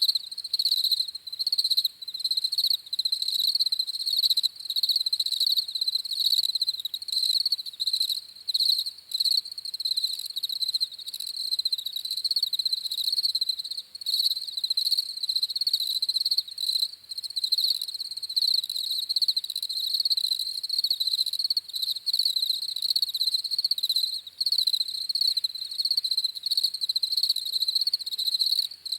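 Crickets chirping: a high, rapidly pulsing trill that goes on without a break.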